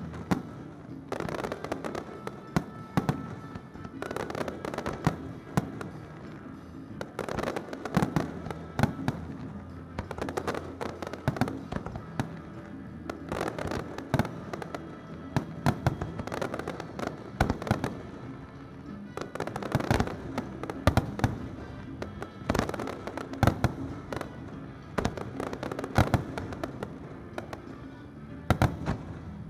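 Aerial fireworks shells bursting overhead, many sharp bangs and crackles coming in irregular clusters. A music soundtrack plays steadily underneath.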